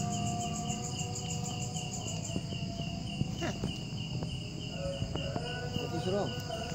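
Crickets chirping in a steady, even pulse, about four chirps a second, with a few faint clicks and short sounds in the second half.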